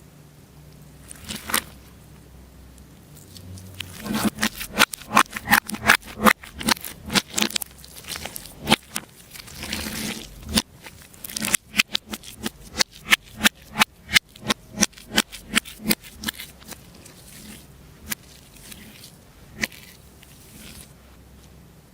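Slime being pressed and worked by hand, giving a run of sharp crackling clicks, about two or three a second, that builds about four seconds in and fades out near the end.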